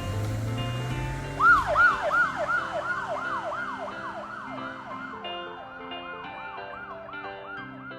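Police siren in a fast yelp, about three quick rising-and-falling sweeps a second, starting about a second and a half in and fading under light piano music. Before it there is a low engine rumble.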